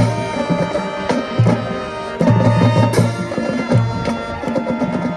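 High school marching band playing: sustained brass chords over the drumline, with low brass or bass drum notes in short repeated pulses and a cymbal crash about three seconds in.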